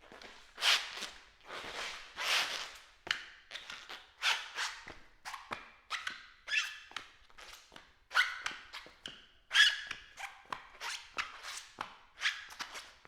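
Rubber-soled shoes squeaking and scuffing on a smooth floor with each step, about two steps a second, some steps giving a short high squeal.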